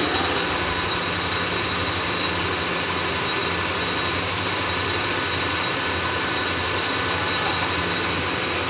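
Hydraulic test pump unit running steadily, with a high whine over a low hum, as it pressurises a large hydraulic cylinder and drives its rod out.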